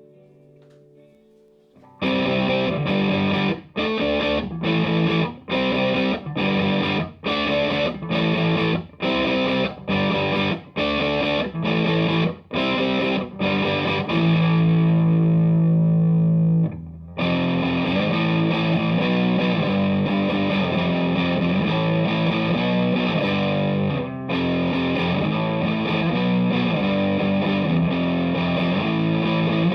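Distorted electric guitar (a Les Paul-style guitar through a DigiTech GNX3 multi-effects preset into an H&K Attax amp). About two seconds in it plays short, chopped chords about once every half second, then a long held chord that stops suddenly, then continuous distorted riffing.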